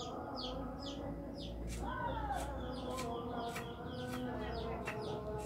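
Small birds chirping in quick, repeated downward-sweeping notes, with chickens clucking underneath; one drawn-out rising-and-falling hen call about two seconds in.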